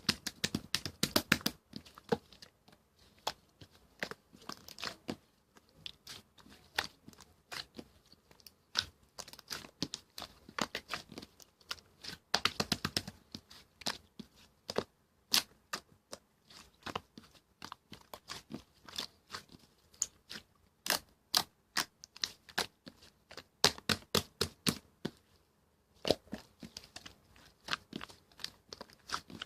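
Slime being squeezed, pressed and stretched by hand, giving an irregular run of sharp clicks, pops and crackles, with a short pause near the end.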